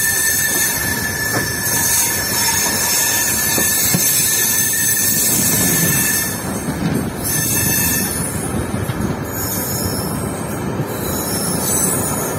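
Passenger train heard from on board as it runs into a station: a steady rumble and clatter of wheels on rail, with a thin high steady squeal that stops about six seconds in.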